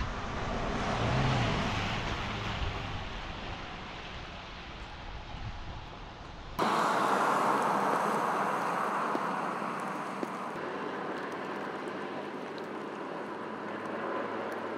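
A car passing on a wet road, swelling about a second in and fading away. About six and a half seconds in it cuts suddenly to a steady outdoor hiss.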